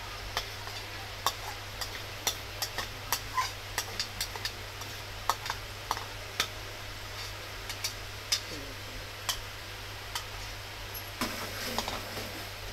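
A steel spoon scraping and tapping wet fenugreek seeds out of a plastic bowl into hot oil in a steel pot, with a faint sizzle and many irregular sharp clicks. Near the end the seeds are stirred in the pot.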